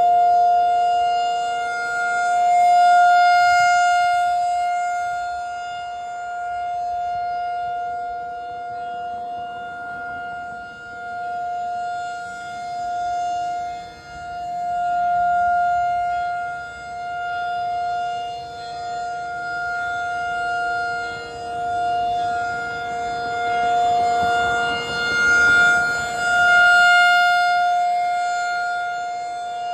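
Federal Signal 2001-SRN electromechanical rotating siren sounding a steady-pitch alert tone. Its loudness swells and fades every few seconds as the rotating horn sweeps past, over a fainter, lower steady tone.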